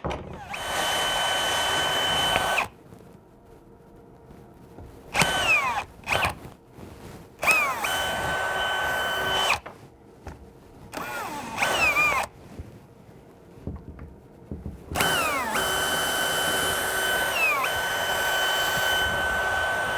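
Power drill run in about six separate bursts, each a second or two long, ending in a steady run of about five seconds near the end. Its whine sags briefly in pitch once during that last run.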